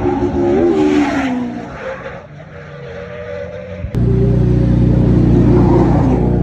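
Drift car engine at high revs, its pitch wavering and then falling away. About four seconds in, an abrupt cut to a loud, steady engine drone.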